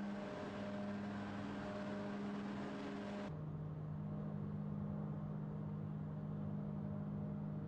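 Forging-line machinery in a plant running with a steady low hum. For the first three seconds a loud hiss rides over it, then stops abruptly.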